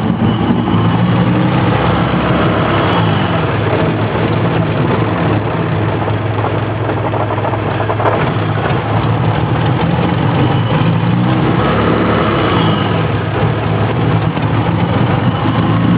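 BMW E30's M20 straight-six idling roughly, its note wavering slightly up and down a couple of times.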